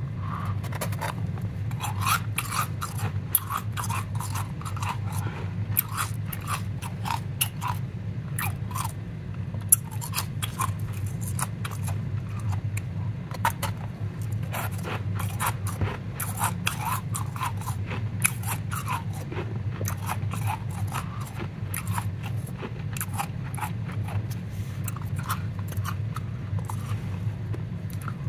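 Powdery ice crunching and crackling close to the microphone in a dense, irregular run of small sharp crunches, over a steady low hum.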